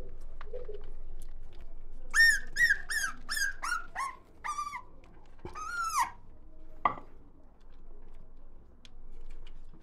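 Young puppies squeaking and whimpering while they nurse: a quick run of about eight short, high-pitched squeaks, each falling in pitch, then one longer whine and a last short squeak about seven seconds in.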